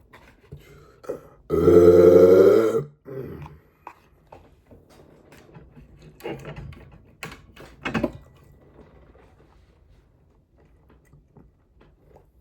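One long, loud burp about a second and a half in, followed by scattered quieter mouth clicks and smacks.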